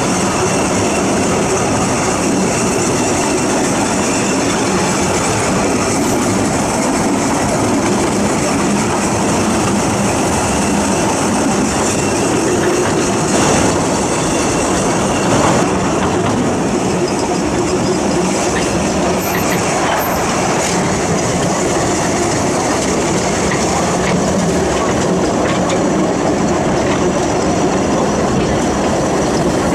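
Steam-hauled narrow-gauge passenger train running on a curving line, heard from an open carriage window: a steady rumble and clatter of the coaches' wheels on the rails, with wheel squeal on the curves.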